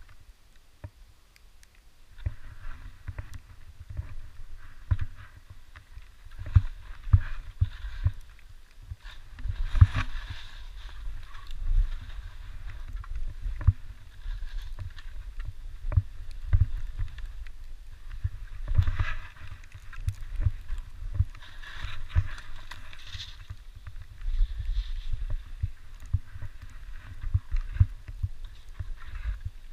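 Skis sliding and scraping over spring snow during a downhill run, heard through a GoPro camera: a continuous low rumble full of knocks and jolts, with scraping hiss that swells on each turn. It starts about two seconds in.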